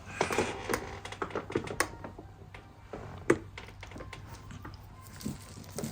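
Irregular light clicking and tapping, with one sharper tap about three seconds in: loose scraps of electrical wire knocking about on a hard surface as a cat bats at them.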